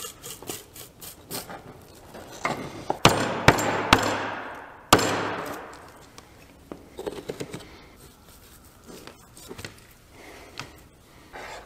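A heavy blade chopping through deer rib bones on a cutting board: four hard, sharp chops between about three and five seconds in, with a rush of noise around them. Lighter knocks and handling of the meat come before and after.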